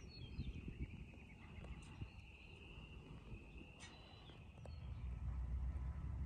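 Outdoor ambience: a few short bird chirps over a steady high-pitched trill that fades out about two-thirds of the way through. Under it is a low wind rumble on the microphone that grows louder near the end.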